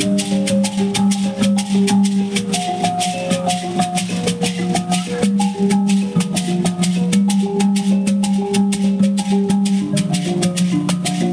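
Mbira played inside large calabash gourd resonators, plucked notes cycling in a repeating pattern, over hosho gourd shakers keeping a steady rapid beat.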